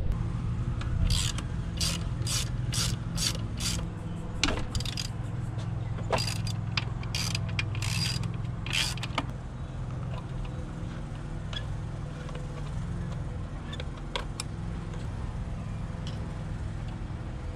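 Socket ratchet clicking in short runs, about two strokes a second, then more sparsely with scattered faint ticks, as bolts at the intercooler of a Subaru WRX are undone.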